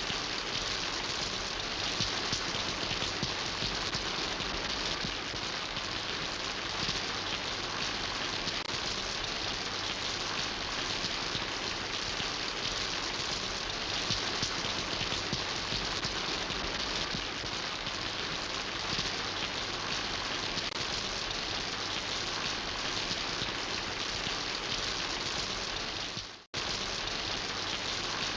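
Steady rain falling, a dense even hiss of drops. It cuts out for a split second near the end and comes straight back.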